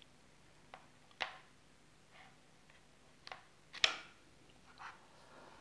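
Five or so small, sharp clicks and taps: a metal prying tool catching against the iPad mini 2's frame and LCD edge as the screen is eased up. The loudest click comes about two-thirds of the way through.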